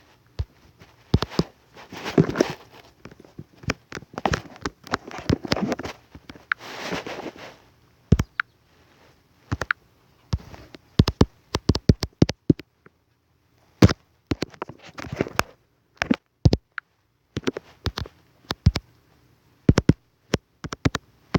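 Computer mouse clicking irregularly, sometimes several quick clicks in a row, with a few short hissy rustles in the first seven seconds. No horn sound answers the clicks: the air horn buttons are not working.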